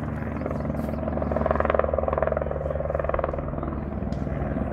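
Helicopter approaching, its rotor beating in a rapid, steady chop.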